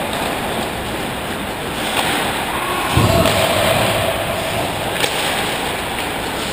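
Ice-hockey rink ambience during play: a steady rushing noise with sharp clicks about two and five seconds in, and a heavy thud about three seconds in, followed by a held tone for over a second.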